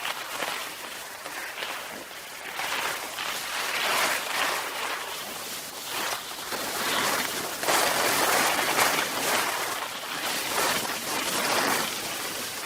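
Skis sliding over snow in repeated swooshes, a new swell about every second or two.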